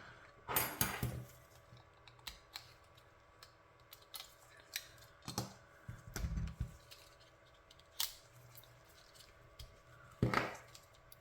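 Light, scattered clicks and taps of small plastic controller parts being handled, with a brief louder scrape about half a second in and another near the end, and a soft low thump around the middle.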